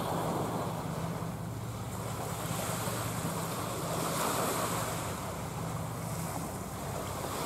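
Wind buffeting the microphone over lapping sea water, with a steady low hum from the engines of the tugboats turning the ship.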